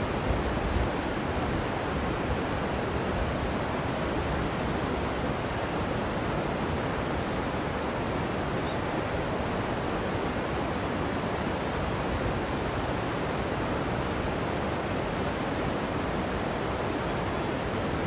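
Steady rushing of a shallow river running over rocks, with a brief low buffet just after the start.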